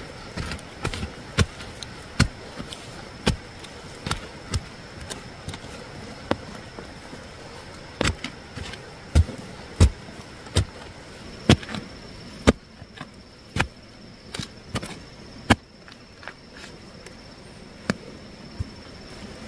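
A digging tool strikes into soil while cassava roots are being dug up: irregular dull chops, roughly one a second, with the hardest ones about halfway through and fewer, more widely spaced strokes near the end.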